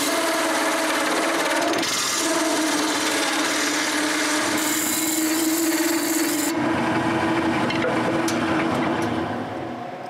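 Wood lathe spinning a glued-up wooden blank while a turning tool cuts a tenon into it: a steady scraping hiss of the cut over the lathe's hum. The cutting noise thins about two-thirds of the way through, and the sound fades near the end.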